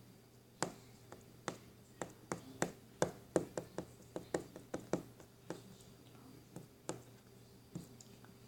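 Slime being squeezed and poked by hand, giving an irregular string of short, sharp clicks and pops that come thickest in the middle of the stretch.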